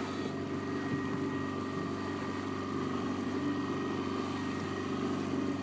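Fishing boat's motor running steadily, an even drone with a thin high whine above it.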